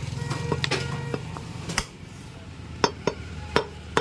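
Butcher's cleaver striking mutton on a chopping block: about eight sharp, irregular chops, the loudest near the middle. A low steady hum fades out about a second in.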